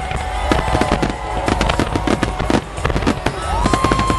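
Fireworks finale barrage: aerial shells bursting in a rapid, dense string of bangs and crackles. A long held high tone comes in near the end.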